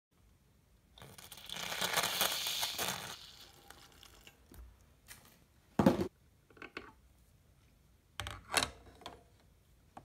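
A hiss lasting about two seconds, then several sharp metallic clacks, the loudest about six seconds in and a cluster near the end, as a bottomless portafilter is handled and seated into the brass group head of a Cimbali Microcimbali lever espresso machine.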